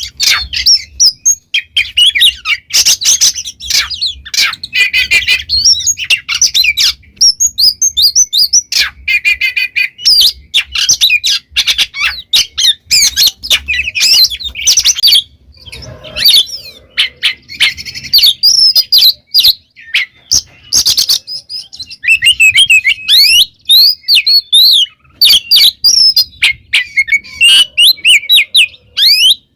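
Oriental magpie-robin (kacer) singing a fast, varied song of gliding whistles mixed with short scratchy notes, almost without pause.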